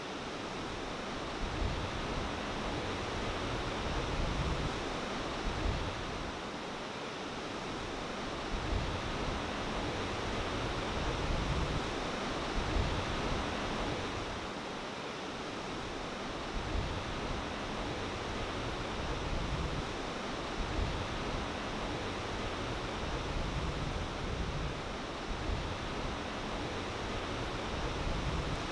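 Ocean surf: a steady hiss of breaking waves and whitewater, with low rumbles swelling and fading every few seconds.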